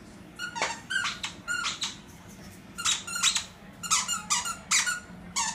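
Squeaky plush monkey toy squeaking again and again as a Shar-pei bites down on it, about a dozen short squeaks in singles and quick pairs, starting about half a second in.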